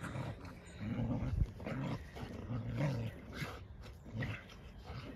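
Dogs and puppies growling in rough play: a series of short, low growls, loudest about a second in.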